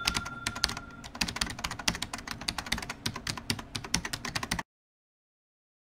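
Keyboard typing sound effect: a rapid, irregular run of key clicks that stops abruptly about four and a half seconds in.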